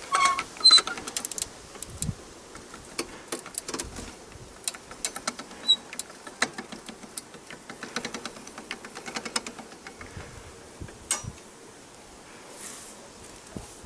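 Quick irregular metal clicks and rattles, in clusters, from a steel hive-lifting trolley with a hand-cranked cable winch, with a brief metallic squeak right at the beginning.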